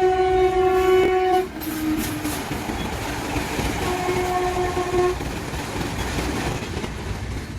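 A train horn blowing a steady blast that cuts off about a second and a half in, then the rumble and clatter of a passing train, with a short lower horn note around two seconds in and another horn blast about four seconds in. The train noise fades away near the end.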